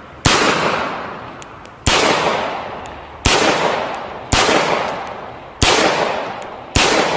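Mauser C96 broomhandle pistol fired six times at an uneven pace, a shot every one to one and a half seconds. Each shot echoes and dies away over about a second.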